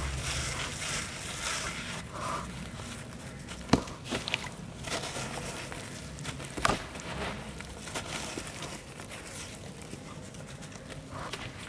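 Bare hands squeezing and crumbling a wet ball of charcoal sand and cement in a basin of slurry water: gritty crunching and wet squishing, with two sharp cracks, about four seconds in and again near seven seconds.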